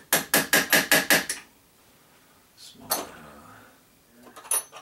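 Small metal rifle parts and tools being handled during AR-15 lower receiver disassembly: a quick run of about nine sharp clicks, a single knock about three seconds in, and small parts clinking with a high ring near the end.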